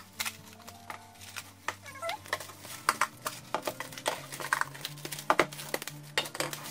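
Plastic cling film and disposable plastic gloves crinkling in quick, irregular crackles as the film is pressed and tucked around a bowl, with faint music underneath.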